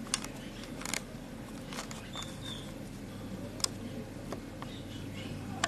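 Harbor ambience: a steady low rumble with scattered sharp clicks and knocks and a few brief high squeaks or chirps.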